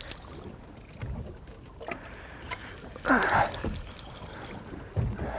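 Sea water lapping and sloshing against the hull of a small boat, louder for a moment a little after three seconds in.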